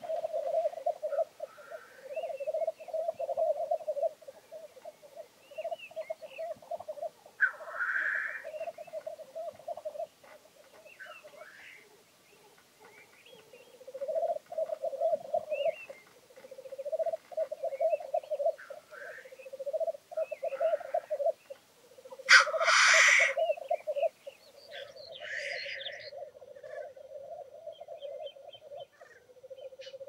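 Black grouse males lekking: the low, bubbling rookooing song in rolling phrases of a second or two, one after another. About three quarters of the way through comes a loud hissing call, the male's sneezing 'tchu-whee'.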